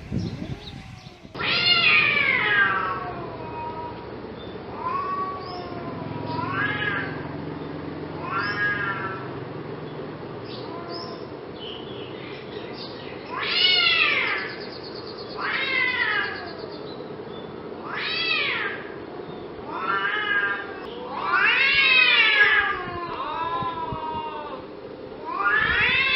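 An angry domestic cat yowling again and again, about a dozen drawn-out meows that each rise and then fall in pitch. The loudest come about two seconds in, around the middle, and near the end, over a faint steady hum.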